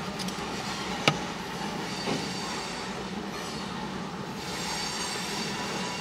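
Freight train boxcars rolling past, a steady rumble of steel wheels on the rails, heard from inside a car. There is a sharp click about a second in and a smaller one about a second later.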